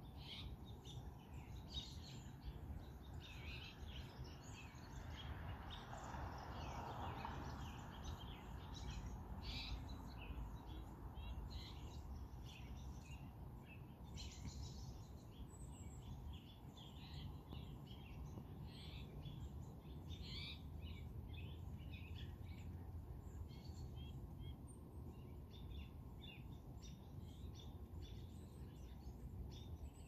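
A chorus of small songbirds chirping and calling in short, overlapping notes throughout, faint and over a steady low background rumble.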